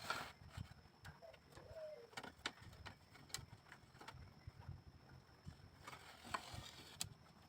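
Faint, scattered clicks and taps from handwork on bamboo, with a dove cooing faintly once, about a second and a half in.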